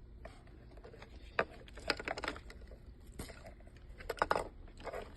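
Handling of a car radio's plastic wiring harness and USB connectors: scattered clicks and short rustles at uneven intervals, a few sharper clicks among them.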